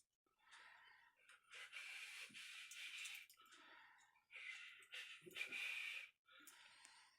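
Faint breathing close to the microphone, a few slow breaths in and out, each lasting one to two seconds.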